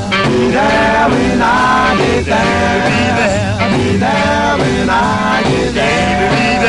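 Background music: a song with band accompaniment and a lead vocal singing.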